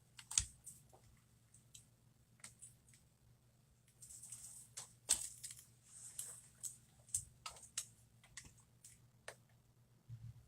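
Scattered small clicks and taps at an irregular pace, with a faint hiss in the middle: hand tools and small parts being handled while working on an opened iPhone.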